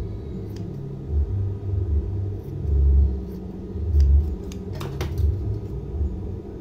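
Industrial overdeck (coverstitch) sewing machine's motor humming steadily, with the machine stitching in short spurts of low rumbling. A few sharp clicks about five seconds in.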